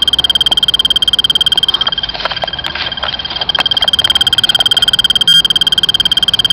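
Radiation Watch radiation detector ticking very rapidly, many clicks a second over a steady high-pitched tone; the clicks thin out for a moment around the middle. The fast count rate is the sign of a strongly radioactive sample, a swipe of black dust reading about 28 µSv/h.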